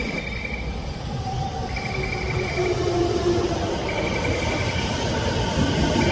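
Toei 10-300 series electric train pulling into the station and braking, its motors whining in shifting pitch and growing louder as it comes alongside. A high beep sounds about every two seconds, each lasting about a second.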